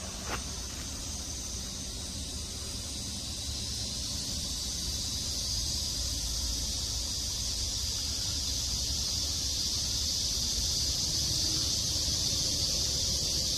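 A steady, high-pitched insect drone that slowly grows louder, over a low outdoor rumble, with one short click just after the start.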